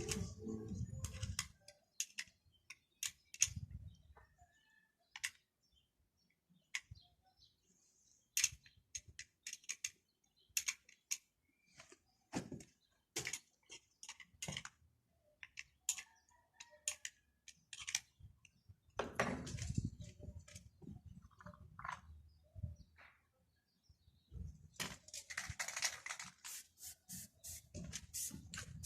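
Irregular sharp clicks and light metallic taps of hand tools and small parts being handled during repair work, with a couple of short spells of rubbing and shuffling. Near the end comes a run of quick, evenly spaced clicks, about four a second.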